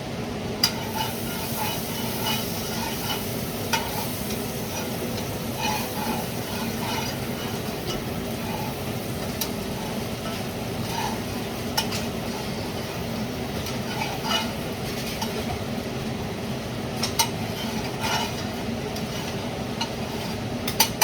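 Food frying in a pan with a steady sizzle, while a utensil stirs and scrapes and taps now and then against the cookware.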